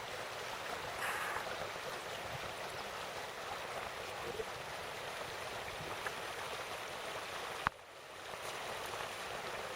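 Stream water rushing steadily. A sharp click comes about three-quarters of the way through, after which the rush drops briefly and swells back.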